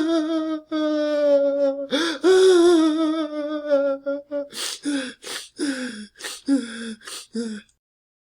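Adult man crying: two long, drawn-out wavering wails with a gasping breath between them, then a run of about ten short whimpering sobs, each falling in pitch, stopping suddenly near the end.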